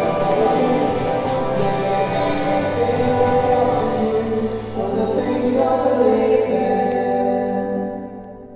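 Worship song with singing over instrumental accompaniment, fading out near the end.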